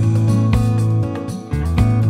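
Background music led by acoustic guitar, with sustained notes over a steady, repeating bass line.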